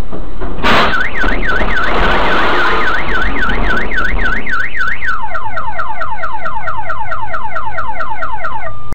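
A sudden crash as a truckload of earth and branches lands on the car, which sets off its car alarm. The alarm whoops up and down for about four seconds, then switches to rapid falling chirps, about five a second.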